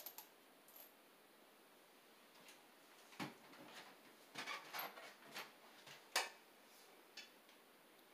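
Mostly near silence, broken by a few faint, scattered clicks and knocks, the loudest about six seconds in: a step ladder being climbed and a cordless drill being picked up and handled.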